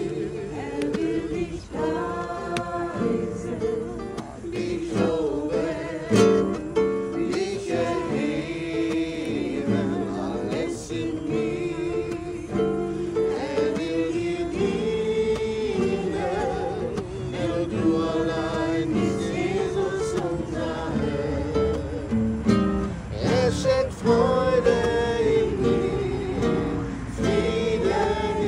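Voices singing a German worship song to acoustic guitar strumming.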